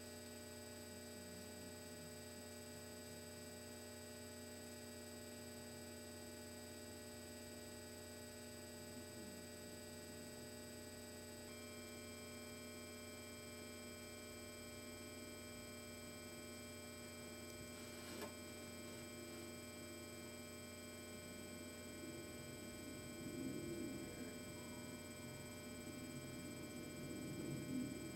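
Steady electrical hum made of several constant tones. A faint click comes about two-thirds of the way through, and soft rustling near the end.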